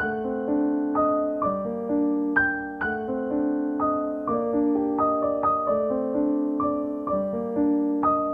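Background music: gentle solo piano playing a steady arpeggiated pattern, several notes a second, each note ringing and fading.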